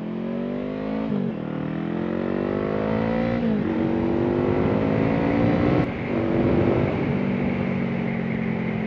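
Honda CBR500R parallel-twin engine through a Coffman Shorty exhaust, accelerating hard. The pitch climbs and drops sharply with each of three upshifts, then holds steady at cruising speed.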